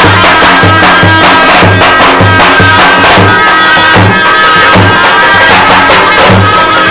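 Loud zurla (folk shawm) band: a piercing reed melody held in long notes over a tapan bass drum, its deep beats falling about twice a second with quick stick clicks between them.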